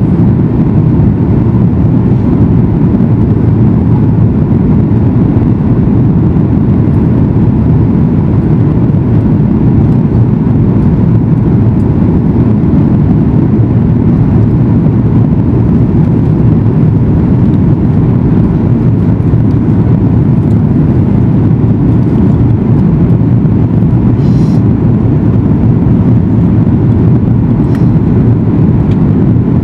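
Steady low cabin rumble inside a Boeing 737 MAX 8 in flight: its CFM LEAP-1B engines and the rush of air over the fuselage, with a faint steady hum above it.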